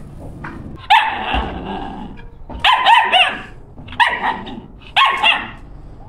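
Dog barking: four sudden, loud barks about a second or more apart, the first about a second in.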